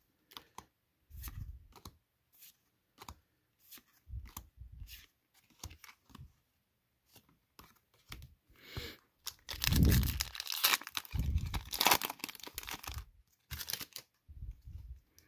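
Trading cards being flipped and handled with small taps and rustles, then, from about nine and a half seconds in, the foil wrapper of a Pokémon booster pack torn open with a few seconds of loud tearing and crinkling.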